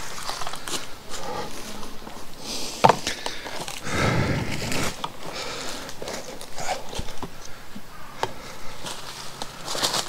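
Footsteps and rustling in dry leaf litter and twigs, with scattered sharp clicks; a louder stretch of rustling about four seconds in.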